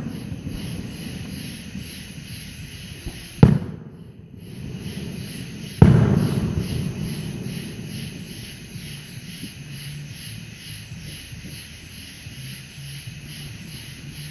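Fireworks going off: two sharp bangs, about three and a half and six seconds in. The second is the louder, with a rumble that fades over a few seconds, over a steady low background of more distant fireworks.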